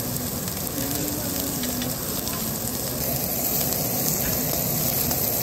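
Pork sizzling on a Korean barbecue grill: a steady hiss of meat frying in its fat.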